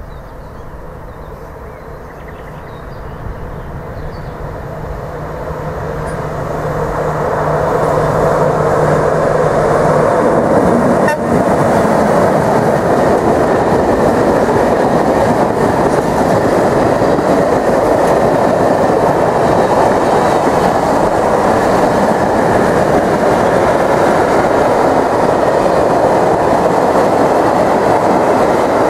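Freight train passing over a short steel girder bridge. A rising rumble, with a steady low hum, builds over the first eight seconds as the train nears. Then comes the loud, steady rolling of tank wagons and open dump wagons on the rails, with one sharp click about eleven seconds in.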